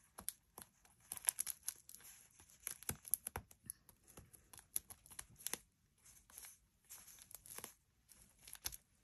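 Hands pressing and rubbing a glued paper piece flat onto a book page: irregular paper rustling and crinkling with small crackles.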